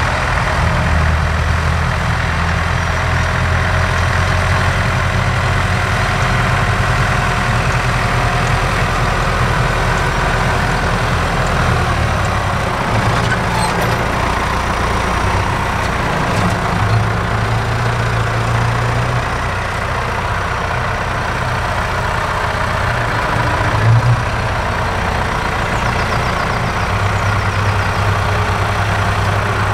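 Large farm tractor's diesel engine running steadily. Its low hum shifts about twelve seconds in, and there is a short knock about two-thirds of the way through.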